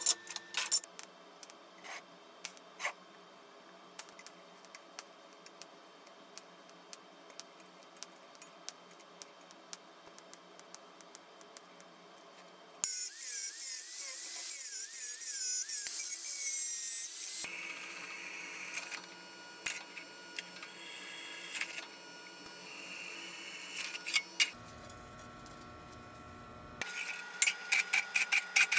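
Metalworking tool sounds. Light clicks and taps come first as sheet metal is handled. About halfway through, an angle grinder runs against the edge of a thin sheet-metal box for several seconds with a loud hiss and a wavering whine. Near the end there is fast ticking as a drill press bores through a thin steel sheet.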